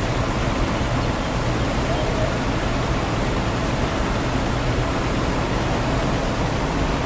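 Combine harvester running steadily while harvesting corn: an even mechanical noise with a low steady hum underneath.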